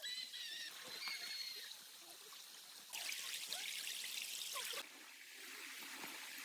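Water trickling, with a louder pouring rush for a couple of seconds in the middle. A few short high calls sound near the start.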